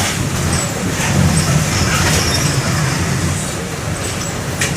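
Mercedes-Benz OM-924 LA four-cylinder inline turbo-diesel engine of an OF-1722M bus running steadily as the bus drives, heard from inside the bus. The engine note swells a little about a second in, and there is a sharp click near the end.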